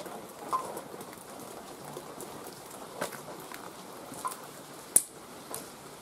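Footsteps on a debris-strewn concrete floor: irregular light crunches and ticks over a steady hiss, with one sharp tick about five seconds in.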